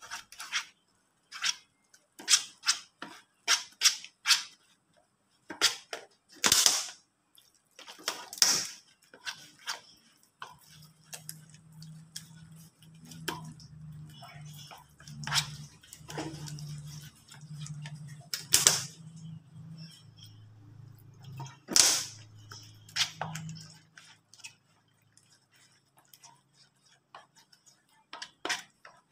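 A metal spoon stirring flour and water into a batter in a plastic bowl: irregular clicks and scrapes of the spoon against the bowl.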